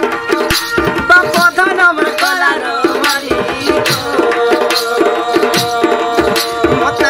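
Sambalpuri Danda folk song: male voices singing through microphones over a steady drum beat and sustained melodic accompaniment.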